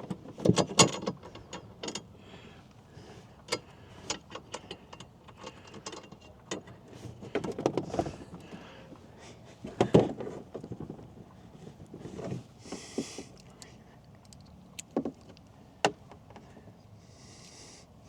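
Irregular knocks, clicks and scrapes of a metal TV mounting bracket and its screw being handled while the screw is worked to get it started in its hole, with two brief hisses, one near the middle and one near the end.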